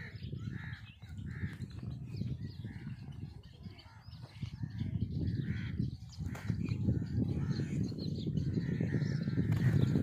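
Crows cawing repeatedly, about once a second, over a steady low rumble.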